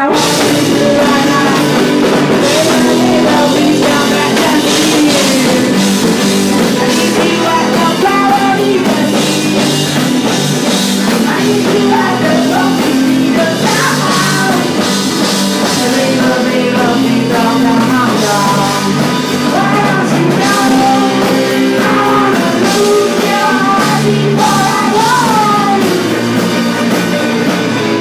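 A garage rock band playing live, with drums and a singing voice over the full band. Loud throughout.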